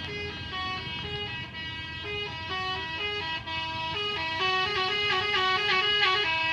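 Bus telolet horns, multi-tone musical air horns, playing quick stepped tunes that change note several times a second. A second horn joins partway through, overlapping the first, and the sound grows louder toward the end.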